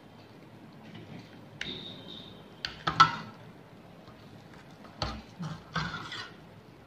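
A perforated steel skimmer clinking and scraping against a stainless-steel bowl while fried pastries are turned in sugar syrup. A few separate clinks in two clusters, the loudest about three seconds in, with a brief metallic ring after the first.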